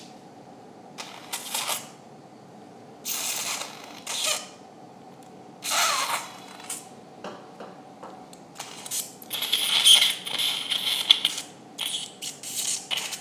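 Surgical suction drawing blood from an open nasal cavity in irregular hissing, slurping bursts, one sliding down in pitch, then a longer stretch of hissing with a thin whistle near the end. This is a steady faint hum of theatre equipment underneath.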